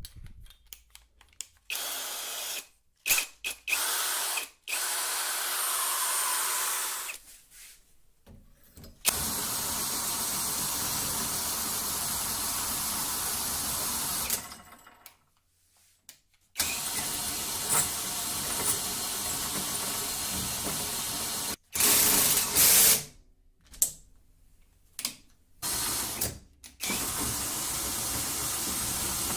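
Handheld power tool running in several runs of a few seconds each, switched on and off abruptly, with short pauses and a few knocks between runs.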